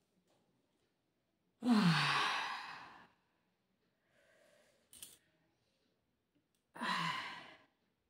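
A woman's yawn ending in a long breathy sigh, her voice falling in pitch as she breathes out. About five seconds in there is a short click, then a second, shorter sighing yawn near the end.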